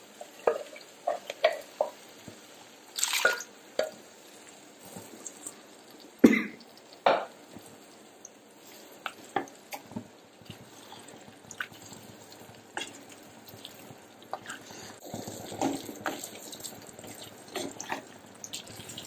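Hot water being poured into a pan of beef and raw plantain roast and stirred in with a spatula: wet splashes and scattered clinks and scrapes of the spatula against the non-stick pan.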